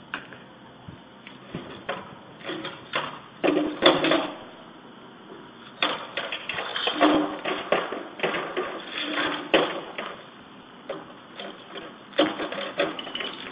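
Glass beer bottles clinking and plastic beer crates knocking together as they are picked up and stacked, in irregular clusters of clatter.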